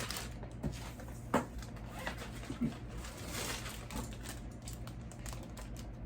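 Food-prep handling sounds: a few soft knocks and clicks with light rustling, as raw chicken breasts and dry rub are worked into plastic zipper bags.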